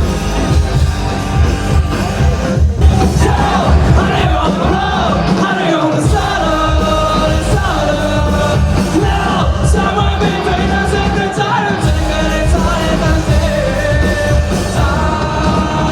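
Live rock band playing loud and amplified, with heavy drums and bass and a lead singer who comes in about three seconds in.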